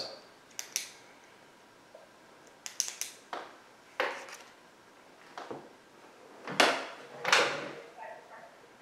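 Scattered light knocks and short rustling swishes from things being handled on a table, about eight in all, coming irregularly with quiet between them.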